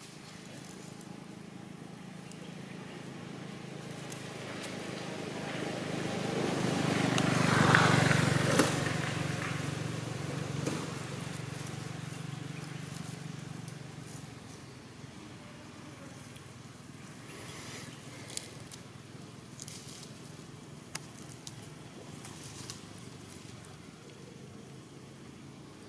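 A motor vehicle passing by: its engine grows louder over several seconds, is loudest about eight seconds in, then fades away. A few faint clicks follow later.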